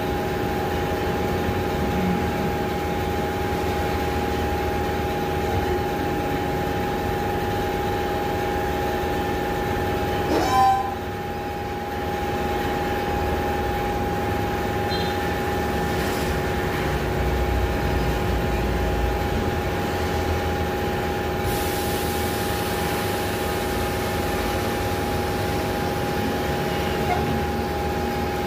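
Steady machine hum made of several fixed tones that hold their pitch throughout. About ten seconds in there is a brief, louder rising whine.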